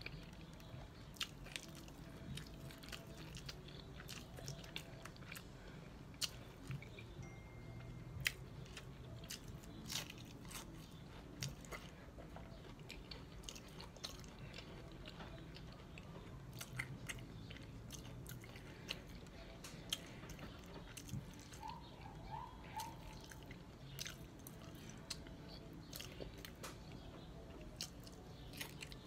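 Crunching and chewing of hard taco shells: many irregular crisp cracks and mouth sounds as the shells are bitten and chewed.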